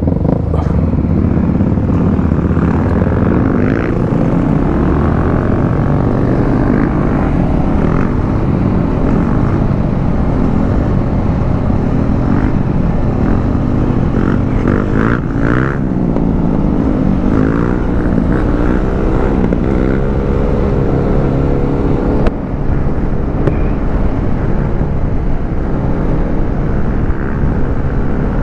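Motorcycle engine running under way, its pitch rising and falling repeatedly as the throttle opens and closes through the middle stretch. There is one brief sharp knock about two-thirds of the way through.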